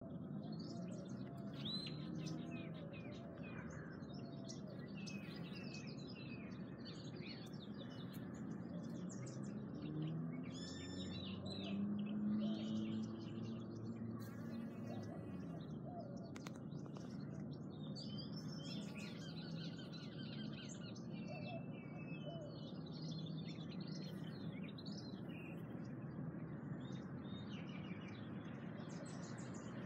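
Several small birds chirping and twittering throughout, with short trills and calls, over a steady low background rumble of city noise that swells briefly about a third of the way in.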